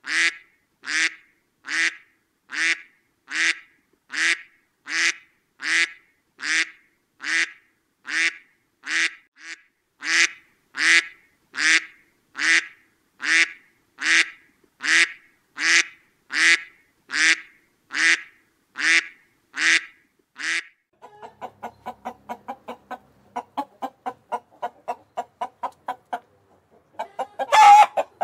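Domestic fowl calling: one short call repeated at a steady pace, about one every 0.8 seconds, for some twenty seconds. Then comes a run of quick, short chicken clucks, with one louder, harsher call near the end.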